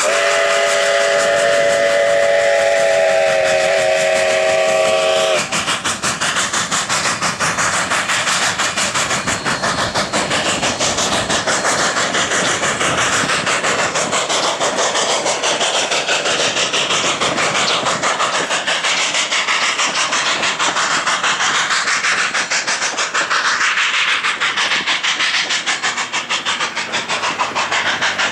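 Steam whistle of Class K-37 2-8-2 locomotive No. 488 holding one steady blast, which cuts off about five seconds in. After that the locomotive works its passenger train away with a fast, regular exhaust beat and steam hiss.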